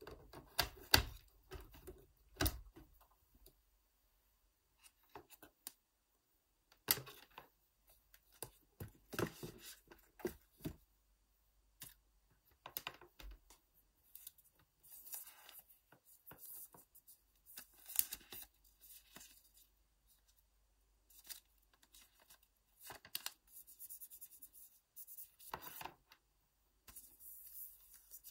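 Hands handling an iPad Pro, its charging cable and its cardboard packaging: scattered faint taps, clicks and short rustles with quiet gaps between them.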